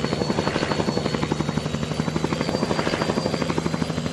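Mi-8 helicopter running with its rotors turning: a steady, rapid, even beat of the rotor blades over a constant engine hum, with a thin high whine.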